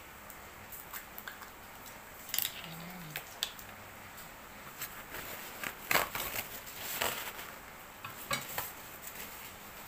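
Eggs being cracked and handled over a bowl: scattered light taps and clicks of shell and dishware, the loudest a little over halfway through.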